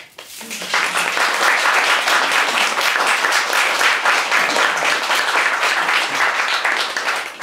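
Audience applauding, building up within the first second and easing off near the end.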